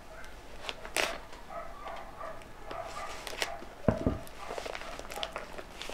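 Scissors snipping and crinkling through a padded plastic mailer, with rustling and crackling as the package is handled. About four seconds in, the scissors are set down on the table with a knock and a low thud.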